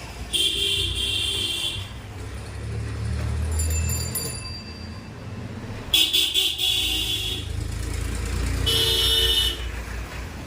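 Road traffic passing, with vehicle engines rumbling and horns honking three times, each honk held for about one to one and a half seconds.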